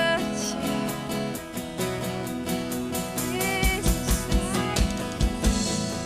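Worship band playing instrumentally: sustained guitar chords over a drum kit, with several kick-drum beats in the second half.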